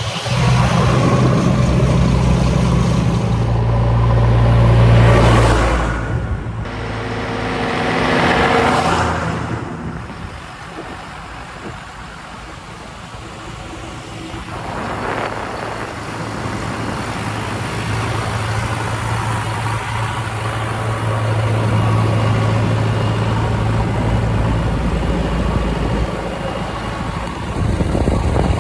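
Heavy diesel engine of a JCB backhoe loader working. Its low note is steady at first, fades about six seconds in and comes back strong about fourteen seconds in. Two swells of rushing noise come around five and nine seconds in.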